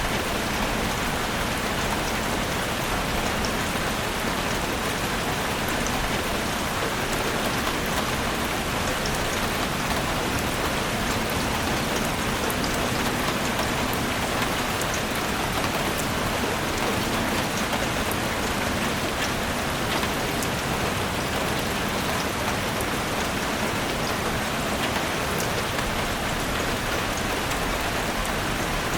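Steady rain falling: an even hiss with scattered drop ticks, unchanging throughout.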